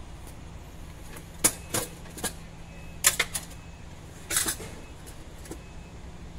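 Metal clinks and taps as a diesel fuel injection pump and its fittings are handled against the engine block. There are a few sharp clicks about a second and a half in, a quick cluster around three seconds, and more just after four seconds, over a steady low hum.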